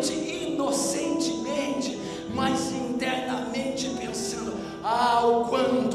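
Music with voices singing over long held notes.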